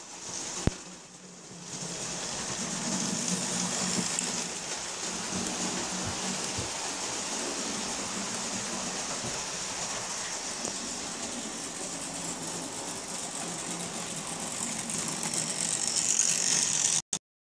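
A model train running on the layout track with the steady whirr and rattle of its motor and wheels on the rails. It swells as the train passes close by and cuts off suddenly near the end.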